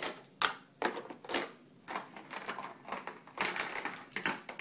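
Irregular clattering clicks and rattles from small toys a baby is handling to make noise, about a dozen sharp knocks with short rattling stretches between them.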